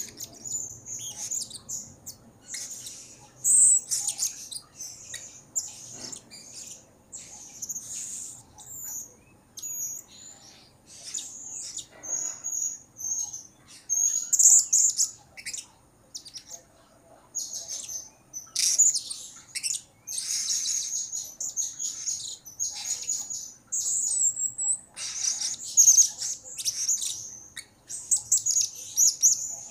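Male blue-crowned hanging parrot (serindit) calling actively: bouts of rapid, shrill, very high-pitched chirps with short pauses between them.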